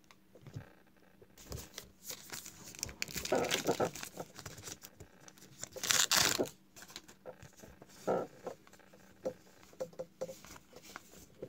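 Crimped plastic wrapper of a Topps WWE Heritage trading card pack crinkling and tearing open. The loudest rip comes about six seconds in, with cards being handled and flicked between the rustles.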